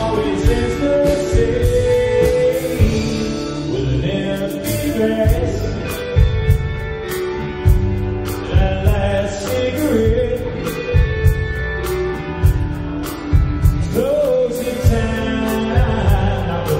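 Live country band playing, with a male lead singer and backing vocals over guitars, bass and a steady drum beat.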